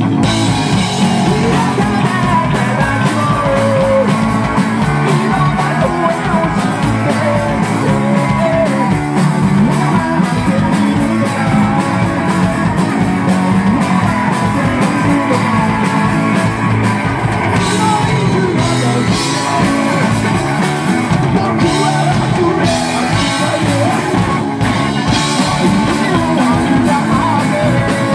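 Rock band playing loudly and without a break: electric bass, electric guitar and a drum kit, with a singer at the microphone.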